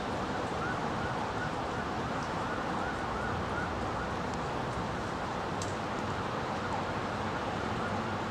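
A distant emergency-vehicle siren cycling in quick rising-and-falling yelps, about two to three a second and clearest in the first half, over steady traffic noise.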